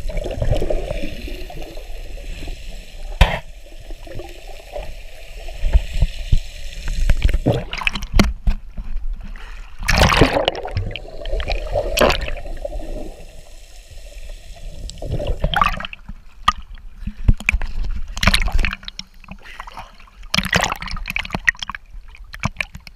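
Muffled sloshing and gurgling of lake water around a camera held underwater, with a few sharp splashes scattered through.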